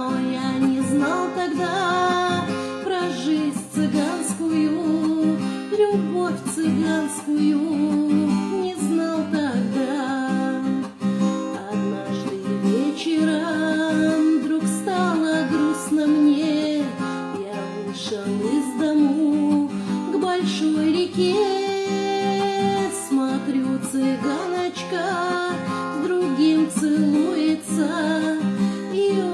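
Acoustic guitar strummed and plucked, playing a passage of a guitar song between sung lines.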